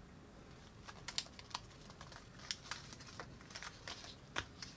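Faint, irregular light clicks and crinkles of a sheet of small paper character cards being folded and pulled apart by hand.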